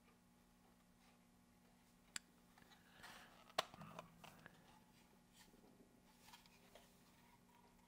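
Faint handling noises of small parts: a sharp click about two seconds in, a louder click with some rustling about a second later, and a few fainter ticks, over a faint steady hum.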